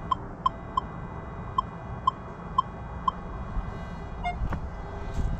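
Metal detector giving short, high electronic beeps, seven of them at uneven spacing, as its search coil is worked into a gap under a rock; about four seconds in it gives one lower-pitched beep. A couple of light knocks follow near the end.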